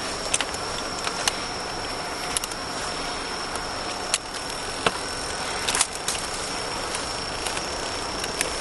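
Steady roadside background noise with a thin high tone held throughout and scattered light clicks and knocks.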